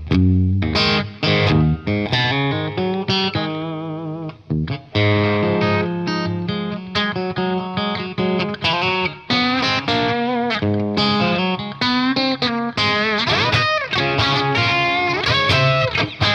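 Electric guitar, a Telecaster, played through an Origin Revival Drive overdrive pedal on its white channel: a run of single-note lead phrases and chords, with vibrato about four seconds in and string bends near the end.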